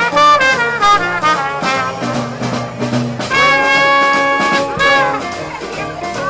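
A small jazz band with a trumpet lead and trombone plays, the trumpet running through quick notes and then holding one long note for about a second and a half, starting about three seconds in.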